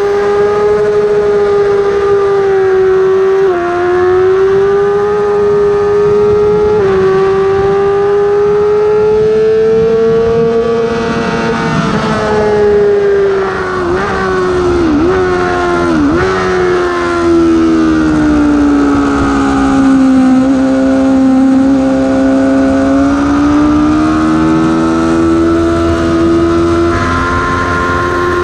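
Yamaha R6 inline-four engine at high revs, heard onboard: two upshifts in the first seven seconds, then revs climbing flat out with wind rush. About halfway through come three quick downshifts under braking, the revs settle lower through the corner and rise again near the end as the throttle opens.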